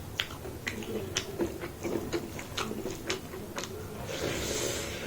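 Close-up eating sounds: wet chewing and irregular smacking clicks, with a brief hiss near the end.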